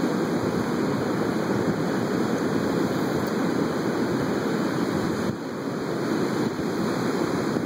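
Steady rush of ocean surf breaking on a beach, an even wash of noise with no distinct events.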